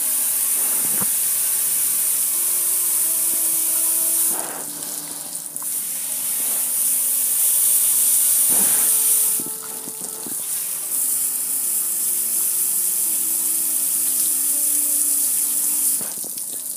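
Water from a hose spraying onto a gas grill and running off its lid and control panel, a steady hiss that eases off briefly about four seconds in, again around nine and a half seconds, and near the end.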